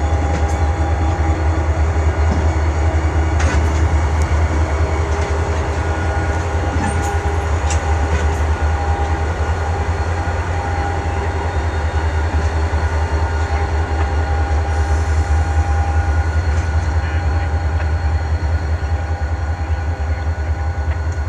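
CN freight train moving slowly, with thin steady wheel-squeal tones over a deep steady rumble, and wind buffeting the microphone.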